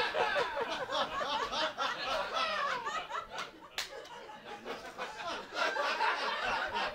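Audience laughing and chuckling at a joke; the laughter thins out and swells again near the end, with one sharp click just before the middle.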